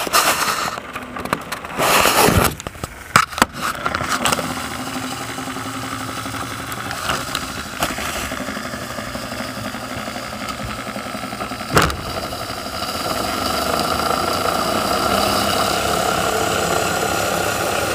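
Toy train's small electric motor running with a steady hum, after a few seconds of knocking and rubbing as it is handled; a sharp knock comes near the middle, and the hum grows a little louder toward the end.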